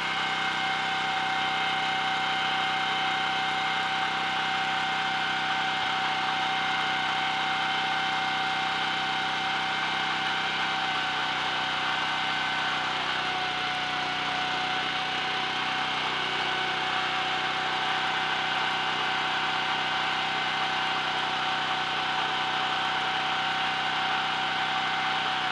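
Small stationary petrol engine running steadily at speed, spinning a motorcycle's front wheel fast, with a steady high whine. The paste-coated brake shoes are set to rub lightly on the drum's high spot, grinding the out-of-round drum that causes front brake judder.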